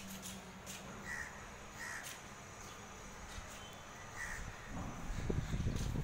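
Crows cawing, with short separate calls about one, two and four seconds in. Near the end a low rumbling noise comes up and is louder than the calls.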